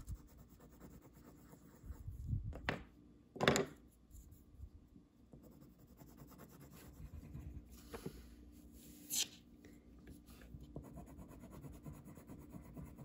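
Wax crayon scratching and rubbing back and forth on a paper worksheet as it is colored in, with a few short knocks, the loudest about three and a half seconds in.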